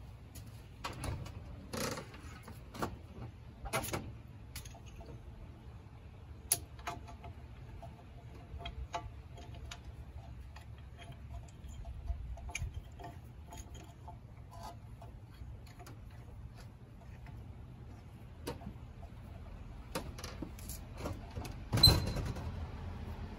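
Scattered metallic clicks and clinks as a ratchet wrench and brake parts are worked on a car's rear disc brake caliper, with a louder clunk near the end.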